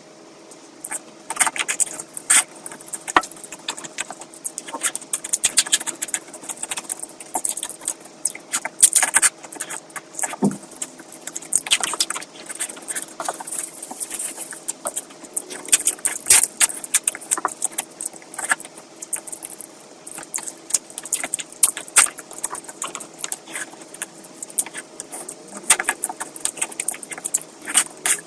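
Close-miked eating sounds of a person eating curry: chewing and lip-smacking, a dense, irregular run of wet clicks and crackles, over a faint steady hum.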